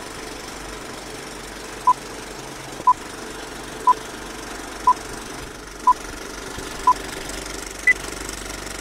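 A countdown of short electronic beeps about once a second: six at one pitch, then a final higher beep. Under them runs a steady mechanical hum with hiss.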